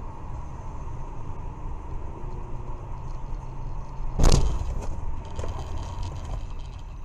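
Road and engine noise inside a moving car heard through a dashcam, a steady low rumble with a faint steady whine. About four seconds in comes one loud thump, followed by a second or so of light rattling knocks.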